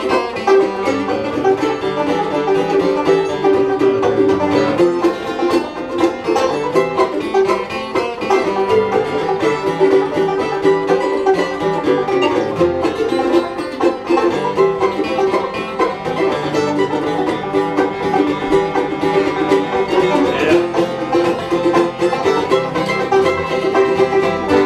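Live acoustic string band playing an instrumental break: banjo picking over a strummed acoustic guitar, with a fiddle alongside.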